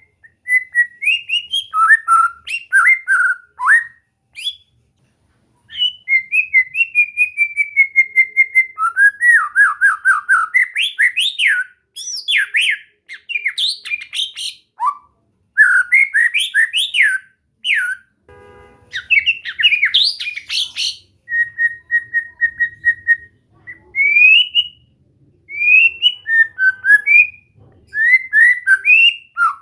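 White-rumped shama (murai batu) singing a long, varied song of loud whistled phrases, fast runs of repeated notes and rising and falling slides. The song is broken by short pauses about five seconds in and again past the middle.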